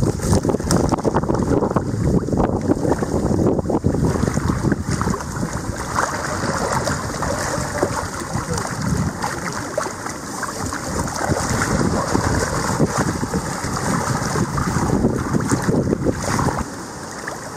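Golden retrievers splashing as they swim and wade through shallow river water, with wind buffeting the microphone. The sound drops quieter about a second before the end.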